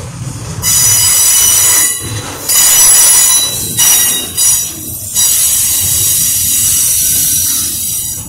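Double-stack container freight cars rolling past, their steel wheels squealing high-pitched over a low rumble. The squeal comes in long stretches broken by short gaps, with two brief squeals a little after the middle.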